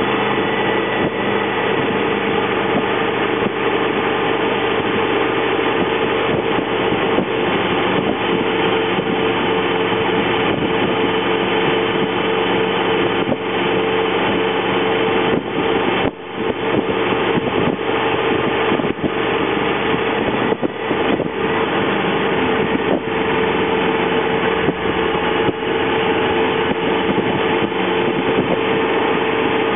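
Honda VFR800's V4 engine running at a steady cruise under a rush of wind noise, dipping briefly about halfway through.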